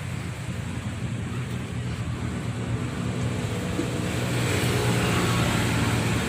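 A motor running steadily with a low hum under a rushing noise, getting louder about four seconds in.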